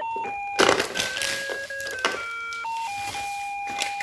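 Simple electronic beeping melody played one note at a time, the jingle of a toy ice cream cart, with a few sharp clicks over it.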